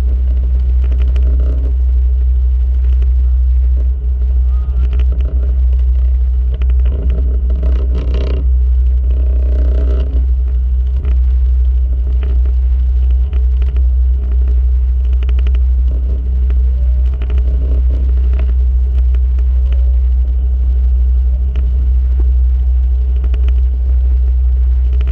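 A steady, loud low drone with a few faint voices about a third of the way in.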